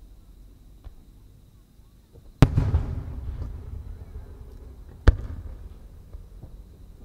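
Two booms from Japanese aerial firework shells, about two and a half seconds apart, each a sharp bang followed by a rumbling echo; the first is the louder.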